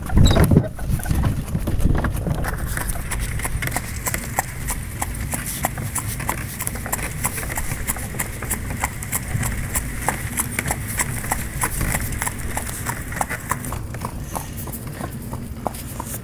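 A harnessed draft horse walking on a snowy road, its hooves giving a steady, even clip-clop of about four to five beats a second over a low rumble. A brief louder rush of noise comes at the very start.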